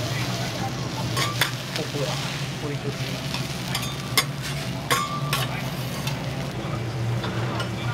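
Food sizzling on a hot teppan griddle, with a few sharp clicks and a brief ringing scrape of metal spatulas against the plate over a steady low hum.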